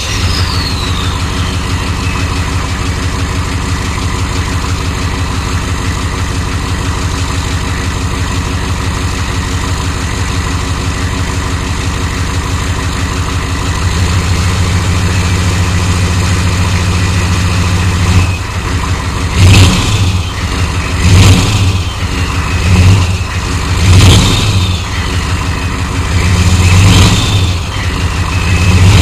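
A 6.5L turbo-diesel V8 idles steadily, its turbo whine dying away in the first couple of seconds. In the last third the throttle is blipped about six times in quick succession, and the turbo whine rises and falls with each rev.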